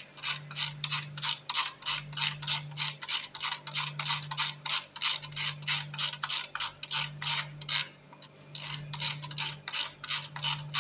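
Dial of a mechanical 24-hour segment timer being turned by hand, its ratchet clicking rapidly and evenly at about five clicks a second, with a brief pause about eight seconds in.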